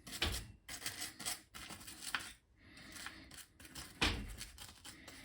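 Scratchy brushing and handling noises on a wet circuit board, in short uneven strokes, with a soft knock just after the start and another about four seconds in.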